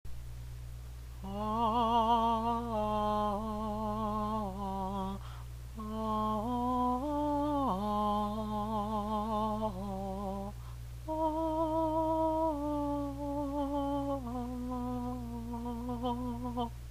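A single voice humming a slow, wordless tune in three phrases, with short pauses between them, over a steady low background hum.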